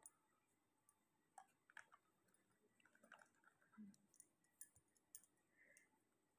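Near silence, with faint scattered clicks and taps from a plastic play-dough cutter and lid being handled as the cutter is pressed into the dough.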